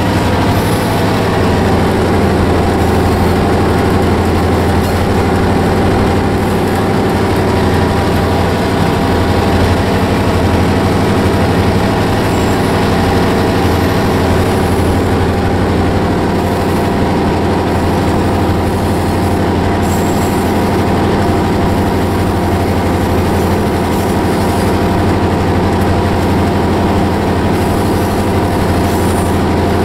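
Diesel engine of an EMD locomotive built as a GP35, running loud and steady, heard from inside its cab while the train is moving.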